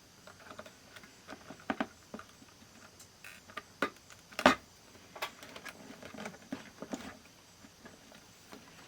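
Scattered light clicks and taps from handling a plastic analog multimeter and small parts during repair, with one louder knock about four and a half seconds in.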